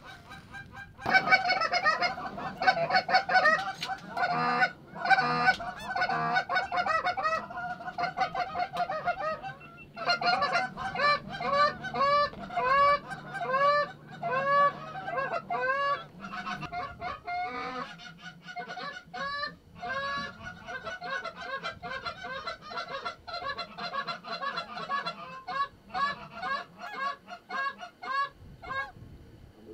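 Canada goose honks and clucks in a rapid, near-continuous run of short calls, several a second, pausing briefly twice.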